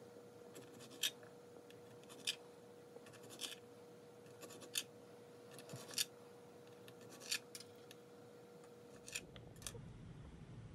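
Kitchen knife chopping cheese into cubes on a plastic cutting board, the blade clicking sharply against the board about once every second or so. The chopping stops near the end.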